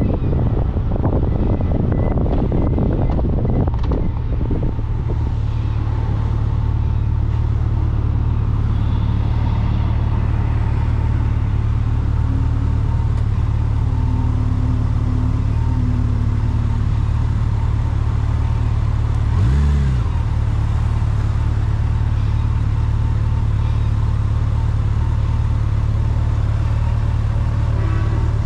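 Steady low drone of a vehicle on the move, with wind buffeting the microphone for the first few seconds. A short swooping sound cuts in about twenty seconds in.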